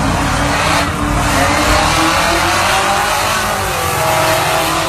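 A red 1996 Impala SS with a swapped-in supercharged LSA V8 launching at full throttle off a drag-strip start line, racing a second car. The loud engine note climbs in pitch as it pulls away.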